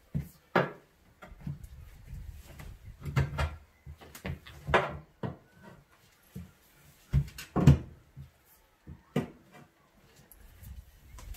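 A steel tyre lever knocking and scraping against a steel tractor wheel rim as the rear tyre's bead is levered over the rim edge: irregular clunks, about six loud ones a second or two apart, over a low shuffling rumble.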